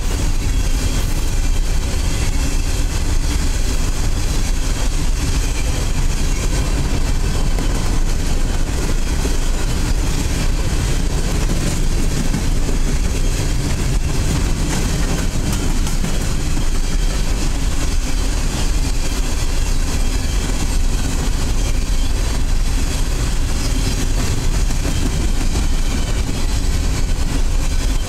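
Coal hopper cars of a freight train rolling past: a loud, steady rumble of steel wheels on the rails that does not let up.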